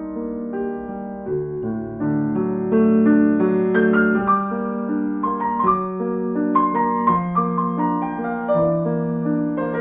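Slow, soft instrumental piano music, single held notes and chords changing about every half second to second.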